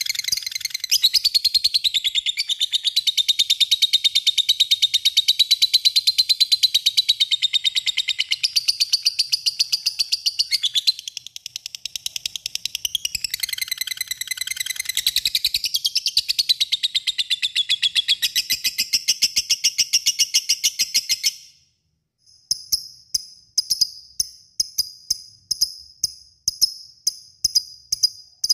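Lovebird giving a long, rapid, shrill chattering trill (the 'ngekek panjang' call) for about twenty seconds, breaking off suddenly. Then a run of short, sharp, high ticks follows at about two a second.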